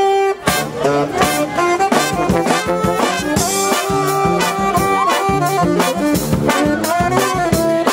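A brass band playing live: trumpets, trombones and saxophone over a sousaphone bass line, with a steady beat.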